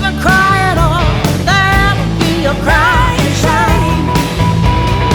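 Country-rock song played by a full band with drums and bass. A lead line of bending, wavering notes ends on one long held note.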